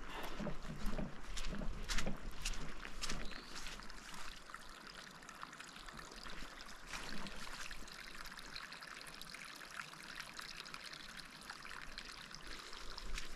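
Rainwater trickling in a small channel through wet grass, with a few footsteps on the grass in the first seconds.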